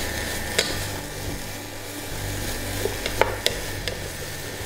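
Sliced bell peppers and bitter melon sizzling as they are stir-fried over high heat in a stainless steel pot. A wooden spatula clicks and scrapes against the pot several times, most of them a few seconds in.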